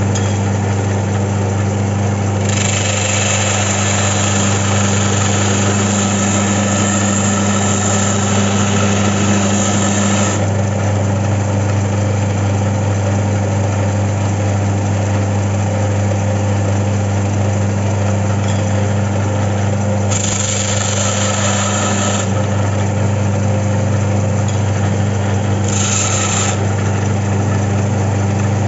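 Mollar DBS375 belt sander running with a steady motor hum, set up upright. Three times a bright sanding hiss swells over it, a long stretch from about 2 to 10 seconds and two shorter ones near 20 and 26 seconds, as a workpiece is pressed against the moving belt.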